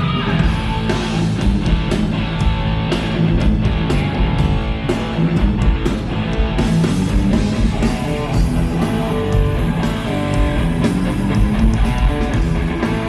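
Rock band playing live during a sound check, guitar to the fore over a full low end, with frequent sharp hits through the music.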